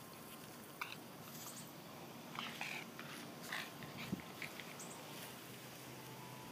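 A few faint, short noises from a Boston Terrier puppy over a quiet, steady background.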